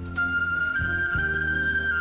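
Background music: a flute playing a slow, held melody over a low sustained accompaniment.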